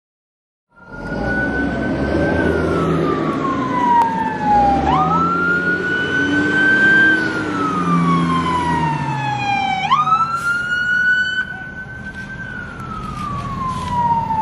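Police emergency-vehicle siren wailing, starting about a second in: the pitch jumps up sharply and slides slowly down, repeating about every five seconds, with a fainter second siren overlapping. Heavy vehicle engines rumble underneath as the armored vehicles pass.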